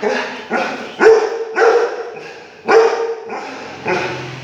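A dog barking, about five loud barks at irregular intervals, with the loudest about a second in.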